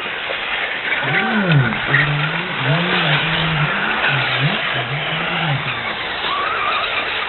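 Race car engine revving up and down as it is driven around the track: the engine note climbs and drops several times in quick succession over the steady noise of other cars.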